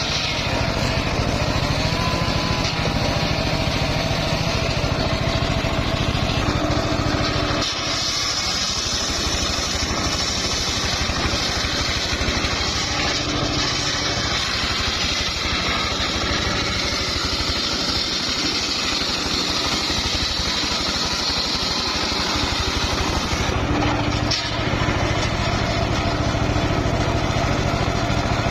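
Home-built engine-powered circular sawmill running steadily; from about eight seconds in its blade cuts through a log of old, slightly hard mahogany with a high whine lasting about fifteen seconds, then the sound falls back to the machine running free.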